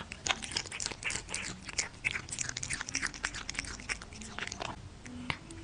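A cat chewing and licking soft, wet food: a quick run of moist smacking clicks, several a second.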